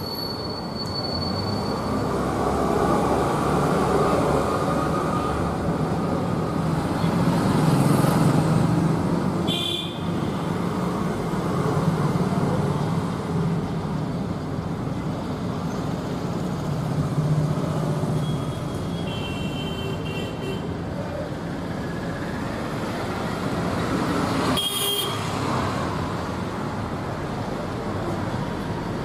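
Steady road traffic from passing motor vehicles, with a low engine hum and several short horn toots.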